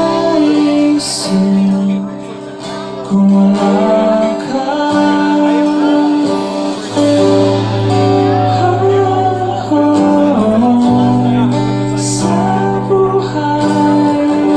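Live rock band playing: a male voice singing over acoustic and electric guitars, bass and drums, with two bright crashes about a second in and near twelve seconds.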